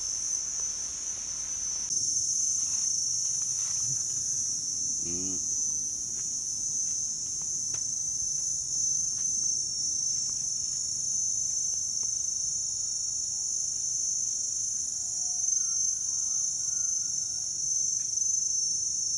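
Steady high-pitched drone of an insect chorus in an orchard, with a short wavering call about five seconds in and a few faint chirps near the end.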